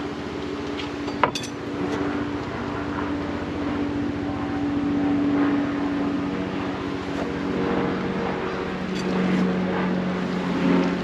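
Honeybees buzzing close by: a dense, steady hum of several overlapping pitches that drift up and down as bees fly near. A single sharp click about a second in.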